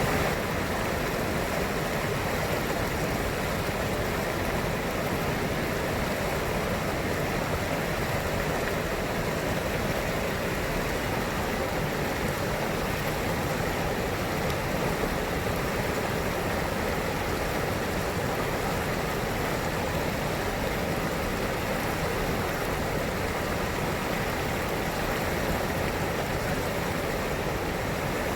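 Steady rushing of flowing river water, an even unbroken wash of sound.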